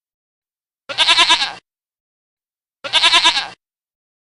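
Domestic goat bleating twice: two matching wavering bleats of under a second each, about two seconds apart.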